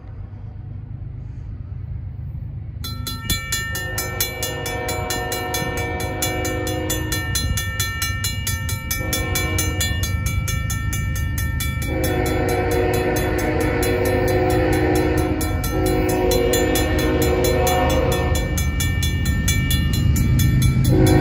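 A Safetran mechanical crossing bell starts ringing about three seconds in with rapid, evenly spaced strokes. Over it, an approaching Union Pacific freight locomotive sounds its horn in a series of long blasts for the crossing, over a low rumble that grows steadily louder.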